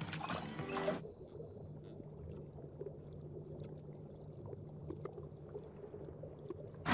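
Faint underwater sound of dolphins: a string of short high whistles rising and falling in the first half, with scattered faint clicks over a low steady underwater hum. Music fades out about a second in.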